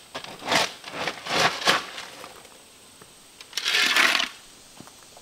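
Hand digging in gravelly soil with a steel shovel and bar: a few short gritty scrapes and jabs in the first two seconds, then a longer shovel scoop of dirt about four seconds in.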